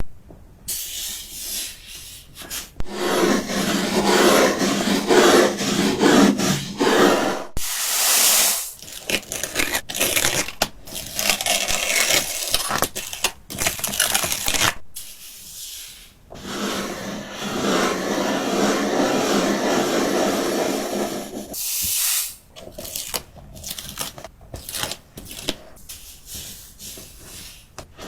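Gritty rubbing and scraping strokes on a surface, in long runs broken by short pauses, like abrasive sanding or rasping.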